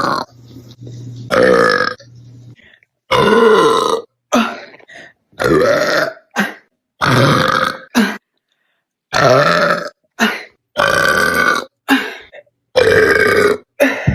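A woman belching loudly over and over, about eight rumbling burps in a row, each under a second long. The burps are cut together with sudden dead silences between them.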